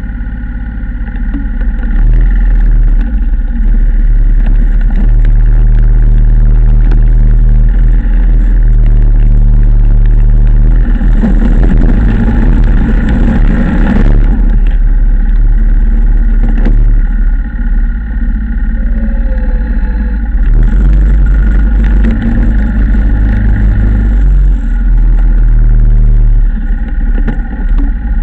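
Yamaha Wolverine ATV engine running under load while it pushes snow with a front plow blade, heard from on board with a heavy low rumble; the engine note rises and falls. A stretch of harsher, noisier sound about halfway through.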